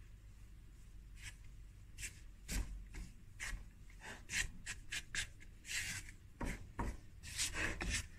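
Silicone spatula scraping through crumbly flour-and-butter dough in a plastic mixing bowl, in irregular strokes that come faster after about two seconds, with a few dull knocks against the bowl.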